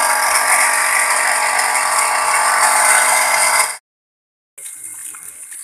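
Sanyo electric water pump running loud and rough, a dense grinding-rattling noise from worn bearings. It cuts off suddenly after almost four seconds. After a short break the same pump runs again much more quietly, with water spraying, after new bearings and seal.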